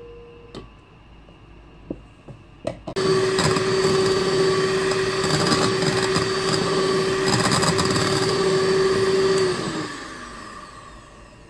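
Electric hand mixer whipping cream in a bowl, running at one steady speed for about six and a half seconds, then switched off and winding down with a falling whine. A few light knocks come before it starts.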